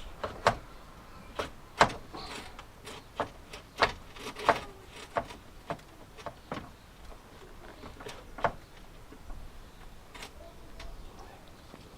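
Irregular metallic clicks and knocks of hand tools and parts being handled inside a Land Rover Discovery 2 rear door, the loudest about two seconds in and around four seconds in, thinning out after about nine seconds.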